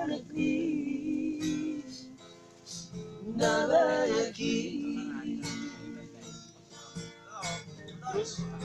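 Acoustic guitar being strummed, with men's voices singing along in snatches; the loudest singing comes about three and a half seconds in.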